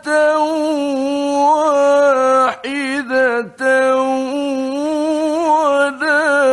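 A man reciting the Quran in a slow, melodic chant, holding long ornamented notes on one voice, with a few brief breaks between phrases.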